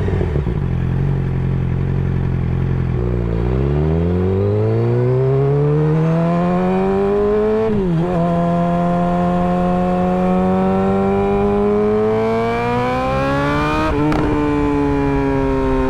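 Suzuki GSX-R600 inline-four through an M4 GP slip-on exhaust, pulling up through the gears. The engine note climbs, dips sharply at an upshift just before halfway, climbs again, and dips at a second upshift near the end.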